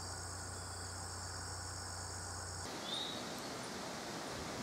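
Faint outdoor ambience: a steady high chorus of insects with a low hum beneath, which stops abruptly about two and a half seconds in. After that only faint open-air hiss remains, with one brief chirp.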